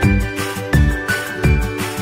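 Background music with a steady beat: a low thump about every 0.7 seconds under sustained higher notes.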